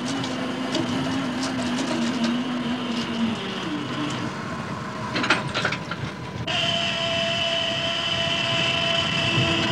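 Fishing dragger's winch and engine running steadily as the trawl net is hauled back alongside, a mechanical drone with a whine that shifts. A few clatters come about five seconds in, and a higher, steadier whine sets in abruptly near the end.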